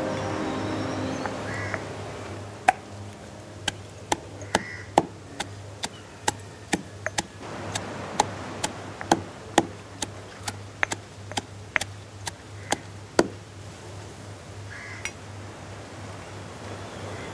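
Stone pestle pounding in a stone mortar: sharp knocks at an irregular pace of about two a second, stopping a few seconds before the end.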